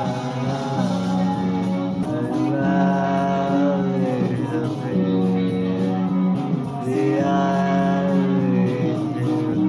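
Music: a rock-style song with guitar and long held sung notes.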